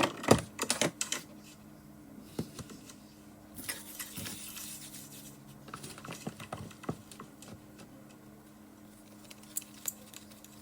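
Kitchen handling noises as dough and breadcrumbs are worked by hand. There is a cluster of clicks and knocks at the start, a rustle about four seconds in, and scattered light taps and scrapes, over a faint steady hum.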